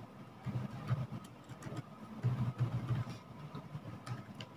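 Faint, scattered computer keyboard and mouse clicks as a spreadsheet formula is entered, over a low, uneven background rumble.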